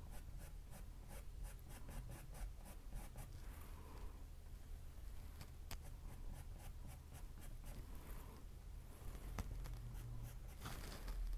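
Paintbrush bristles scratching against a stretched canvas in quick short dabbing strokes as palm fronds are painted, about four or five strokes a second for the first few seconds, then slower and sparser. Faint, over a low steady room hum.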